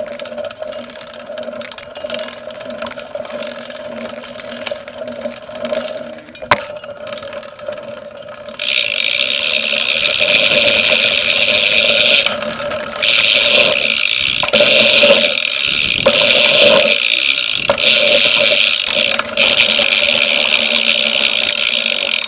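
Ride noise from a camera mounted on a BMX bike's stem: the bike rattling and scraping as it rides dirt jumps, with a sharp knock about six and a half seconds in. From about eight and a half seconds a loud, steady high-pitched hiss sets in and runs on with a few short breaks.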